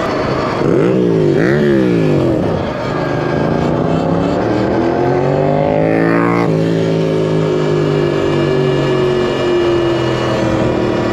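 Yamaha FZ-07's parallel-twin engine revved up and down twice quickly, then accelerating with a long rise in pitch. About six and a half seconds in the pitch drops suddenly, then sinks slowly as the bike eases off.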